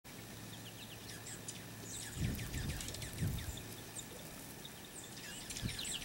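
A flock of small songbirds, juncos and finches, twittering with many quick, high, falling chirps in two flurries, the first about a second in and the second near the end. Low rumbles come up about two and three seconds in.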